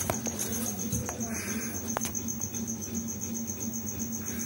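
A few light clicks as a RAM stick is pressed down into its motherboard slot, over a steady high-pitched pulsing trill and a low steady hum.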